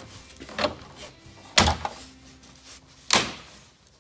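Chevy Colorado front bowtie emblem being pressed by hand into the plastic grille as its pins snap into place: a light knock, then two loud thumps about a second and a half apart.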